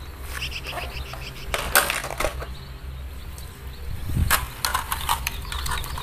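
Hard plastic toy trains being handled and put down, giving a scattered series of clicks and knocks, over a steady low hum.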